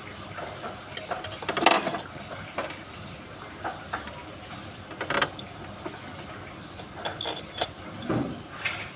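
A handful of separate metallic clanks and clinks from hand tools and engine parts being handled during a diesel engine top overhaul, spaced a second or more apart.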